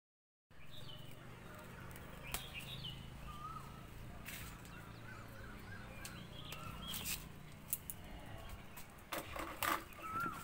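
Outdoor garden ambience: small birds chirping here and there, with a few short sharp clicks and a low steady hum underneath.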